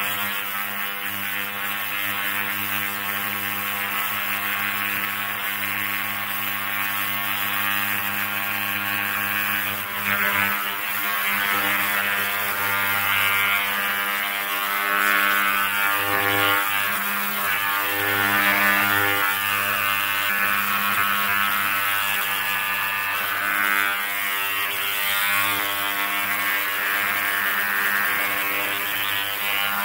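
Ultrasonic cleaner running: a steady electric buzz with a hiss over it that swells and fades a little.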